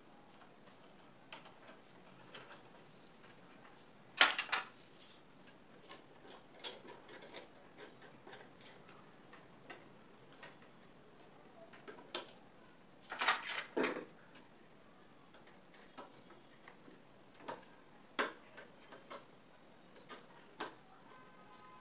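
Screwdriver working the needle-plate screws of a Butterfly sewing machine, metal tool against metal parts: scattered light clicks, with two louder clattering rattles about four seconds in and again about thirteen seconds in.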